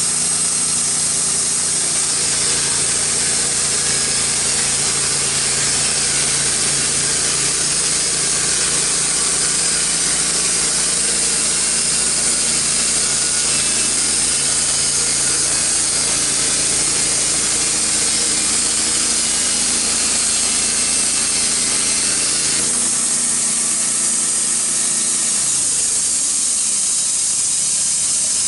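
Wood-Mizer LT15 band sawmill sawing through a red oak log, its blade and engine running steadily under load. About 23 seconds in, the sawing sound drops away and the engine note changes.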